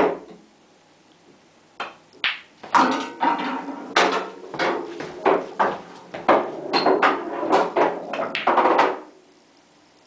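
Pool balls knocking and clattering on a pub-style pool table: a couple of sharp knocks about two seconds in, then a quick run of knocks from about three seconds in that stops shortly before the end.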